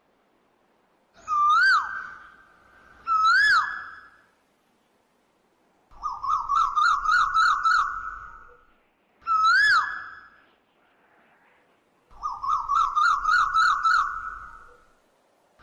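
A bird calling loudly and close: single swooping whistled notes alternating with rapid trilled phrases, in a repeating sequence with short pauses between.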